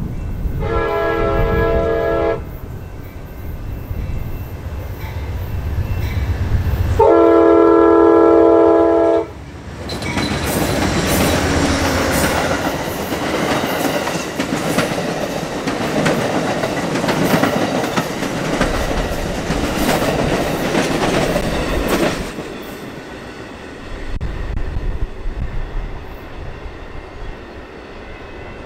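Passenger train passing: a GE P42DC diesel locomotive rumbles in and sounds its multi-tone air horn twice, a short blast and then a longer, louder one. Double-deck passenger cars then run by with a steady clickety-clack of wheels over the rail joints for about twelve seconds, fading as the train recedes.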